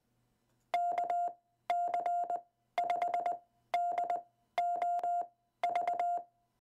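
Morse code beeps at about 700 Hz, sent as six quick groups about a second apart: the amateur radio callsign KC5DOV, one character per group.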